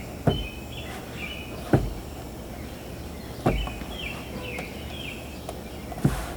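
Four dull thumps a second or two apart as stiff bread dough is worked by hand in a bowl, with small birds chirping in short runs behind.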